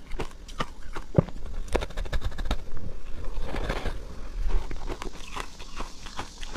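A thick sheet of frozen purple ice being bitten and chewed: a quick, irregular run of sharp cracks and crackles, with a softer grinding crunch midway.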